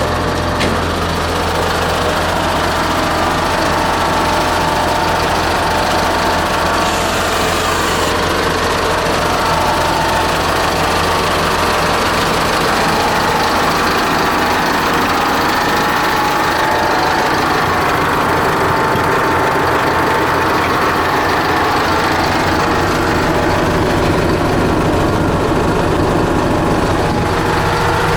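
Bucher CityCat 5000 street sweeper running, its Mercedes four-cylinder diesel and machinery giving a steady mechanical drone.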